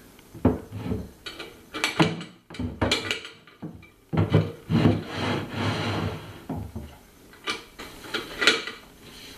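Wooden lattice sliding door being fitted into its track in a hardwood cabinet: wood rubbing and scraping as the panel slides, broken by several sharp wooden knocks as it is lifted in and seated.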